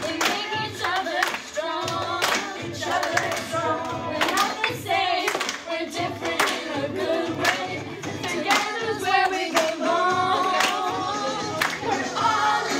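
Song with singing over a steady beat, played as dance music.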